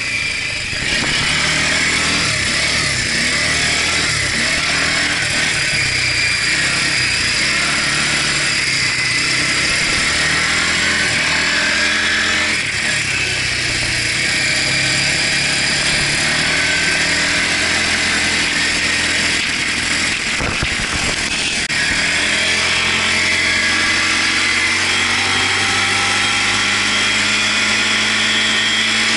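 Quad bike engine running under way, its pitch rising and falling with the throttle through the first half, then holding steadier, under a constant high hiss. A brief cluster of knocks comes about twenty seconds in.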